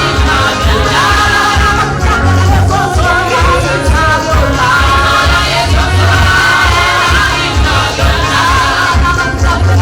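Live gospel praise-and-worship music: a band with a heavy, steady bass beat under voices singing together.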